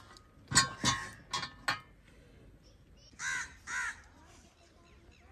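Iron tawa griddle knocking and clanking four times in quick succession as it is set down on a mud stove, with a short metallic ring, then a crow caws twice.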